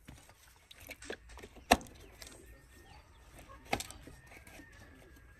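Oil filler cap on a JCB 3DX backhoe's engine being fitted back on and pressed shut by hand. A few small clicks, the two sharpest about two seconds apart.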